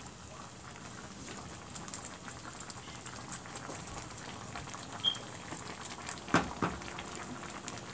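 Lentil and bottle gourd dal simmering in a pot and being stirred with a spatula: a steady soft bubbling with small wet ticks and scrapes, and two sharper knocks of the spatula about six and a half seconds in.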